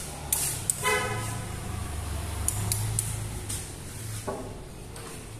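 A vehicle horn toots briefly about a second in, over the low rumble of a passing motor vehicle; a few light clicks follow, and a second short tone comes near the end.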